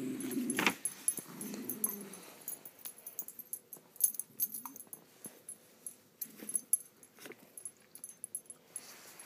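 Two dogs play-fighting, with low growling in the first two seconds. Scattered clicks and knocks follow; the loudest is a sharp knock about four seconds in.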